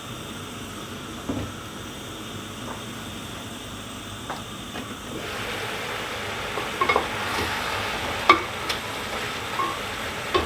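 Hot oil sizzling in a frying pan, growing louder about five seconds in as the frying picks up. Several sharp clinks of a utensil against the pan come through the sizzle.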